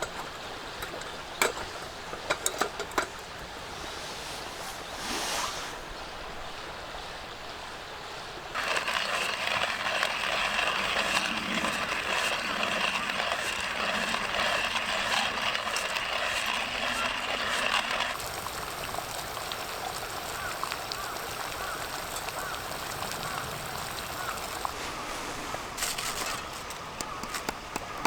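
Breakfast frying in a pan over a wood-burning stove: a few sharp crackles, then a dense sizzle that starts and stops abruptly, followed by a softer, steady hiss.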